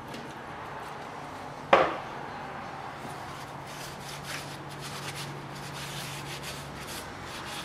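A single sharp knock about two seconds in, then a cloth rubbing in repeated short strokes over the metal tailstock of a wood lathe as it is wiped clean.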